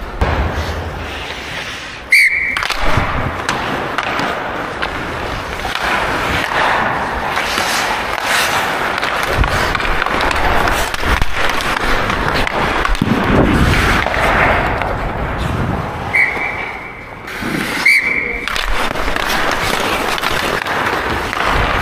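Ice hockey skates carving and scraping across the rink ice in a steady rush, with two sharp clacks of sticks and puck, about two seconds in and again a few seconds before the end.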